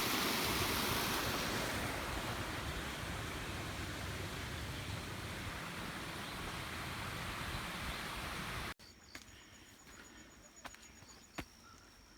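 Waterfall: a steady, loud rush of falling water that stops abruptly near the end. After it comes a much quieter stretch with a thin high steady buzz, like an insect, and a few sharp clicks.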